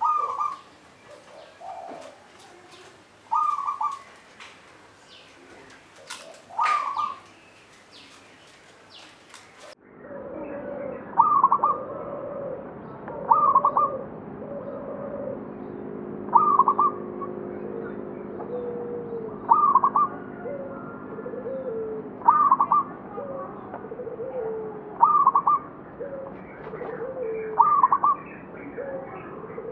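Zebra dove (perkutut) cooing its repeated song, one call every three seconds or so. About a third of the way in, the sound changes to a duller recording with a steady low hum underneath, and the calls come a little faster.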